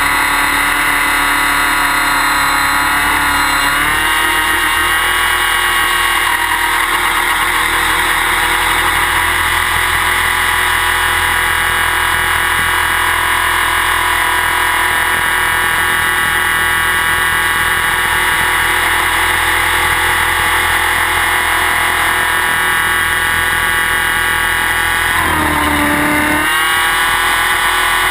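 Align T-REX 600E Pro electric RC helicopter in flight, heard close up from a camera on its frame: steady high whine of the brushless motor and gear drive over the rotor noise. Near the end the pitch dips briefly and then comes back up.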